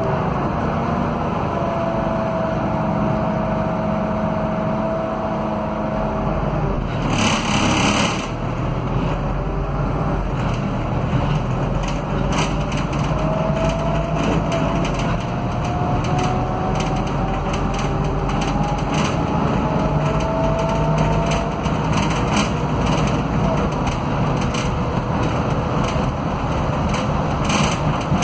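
Inside the rear of a Scania K320UA articulated bus on the move: its Scania DC09 five-cylinder diesel runs under a whine from the hub-reduction rear axle, with interior rattles. The whine holds steady at first, then rises in pitch twice as the bus gathers speed. About seven seconds in comes a short loud hiss.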